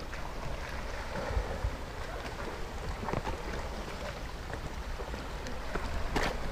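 Breeze buffeting the microphone with a low rumble over a steady rush, and small lake waves lapping against the rock shore. A few light scuffs of footsteps on rock are scattered through it.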